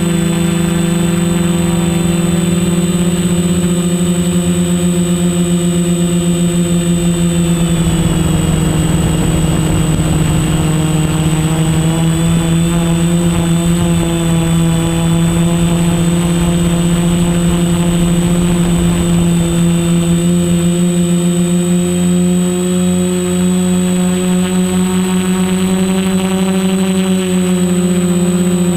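Quadcopter's electric motors and propellers whining steadily, the pitch dropping about eight seconds in and climbing again a few seconds later as the throttle changes.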